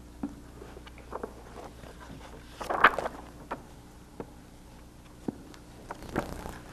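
Paper rustling and light taps as pages and a book are handled at a wooden lectern, with a louder rustle about three seconds in. A faint steady low hum runs underneath.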